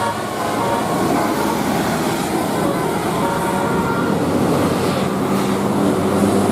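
A large bus passing with a loud, steady engine and road rumble. The held notes of its multi-tone telolet horn die away about a second in, and low horn-like tones return near the end.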